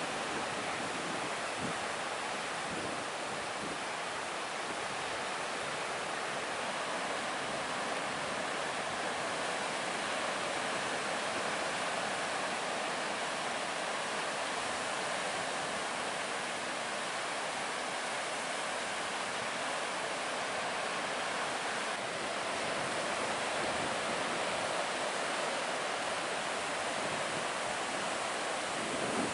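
Breaking ocean surf: a steady, even wash of waves with no single crash standing out.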